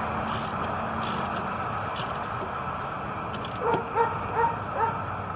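A dog barking or yipping: four short barks in quick succession, starting a little over three and a half seconds in, over a steady background noise.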